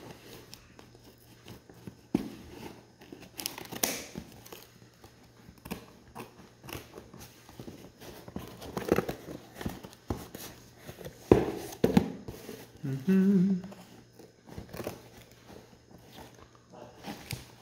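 Scissors cutting and scraping at packing tape on a cardboard box, with scattered rustles, taps and scrapes of the cardboard being handled. A sharp knock comes about eleven seconds in, and a brief low hum follows a little after.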